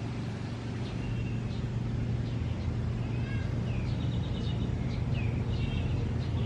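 Short high bird chirps, a few in quick succession, over a steady low hum.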